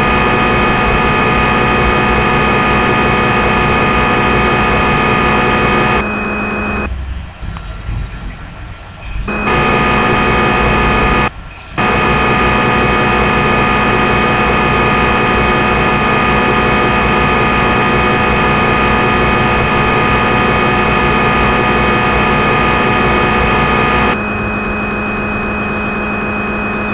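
Simulated CNC lathe machine sound from the Swansoft SSCNC simulator: a steady hum of several held tones as the spindle runs. It cuts out for about two seconds a quarter of the way in and again for a moment shortly after, then gets a little quieter near the end.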